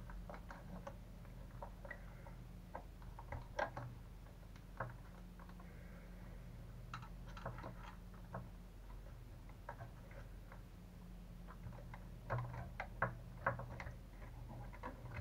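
Irregular small clicks and taps of parts being handled and fitted on a Traxxas Revo 3.3 RC truck chassis, bunched around four seconds in and again near the end, over a steady low electrical hum.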